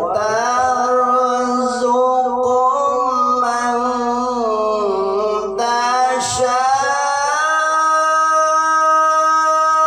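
A male qari reciting the Quran in the melodic tilawah style, drawing out long ornamented notes with no clear words. He breaks briefly for breath about halfway through, then holds a long steady note at a higher pitch.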